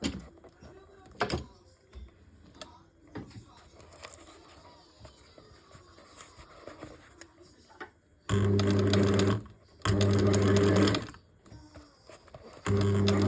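Electric sewing machine stitching the repair on a horse's leg boot in three short runs of about a second each, starting about eight seconds in. Before that there are only faint clicks of handling.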